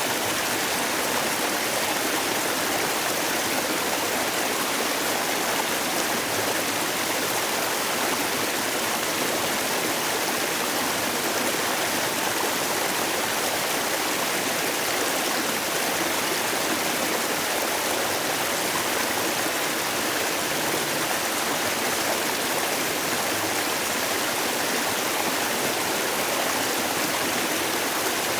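Mountain valley stream water flowing, a steady, unbroken rush of splashing water.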